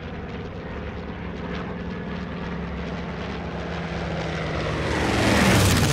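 Mitsubishi A6M Zero fighter's radial engine and propeller flying past: a steady drone that grows louder, peaks near the end and drops in pitch as the plane goes by.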